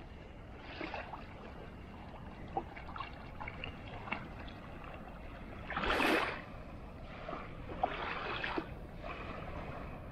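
Sea surf washing up on a sandy beach, a steady wash with a louder surge about six seconds in.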